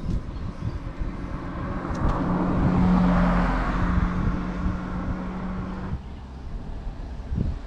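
A road vehicle passing close by. Its steady engine note and tyre noise swell about two seconds in, peak around three seconds and fade out by six seconds.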